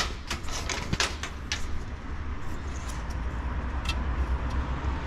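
A few light clicks and taps of an air-conditioning thermistor being handled and fitted into place, mostly in the first second and a half and once more near the end, over a steady low hum.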